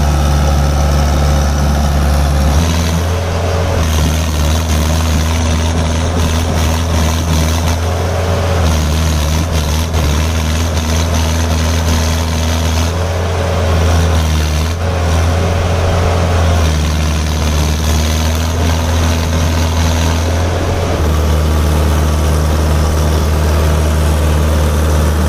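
Mahindra Arjun 555 tractor's diesel engine running hard under load as it tows three tractors chained behind it: a loud, steady low drone whose pitch and tone shift a little every few seconds.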